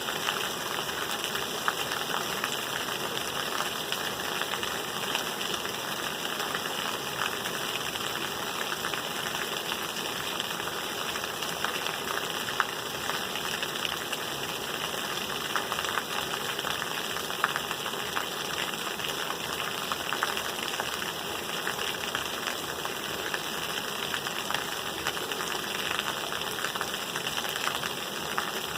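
Steady rain falling: a dense, even hiss sprinkled with many small drop ticks.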